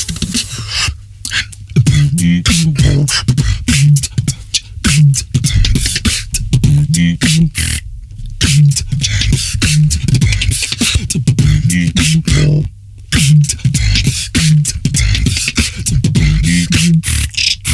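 Beatboxing: mouth-made kick drums with a deep bass tone, snares and hi-hats in a steady beat, with brief pauses about a second in, around eight seconds, and near thirteen seconds.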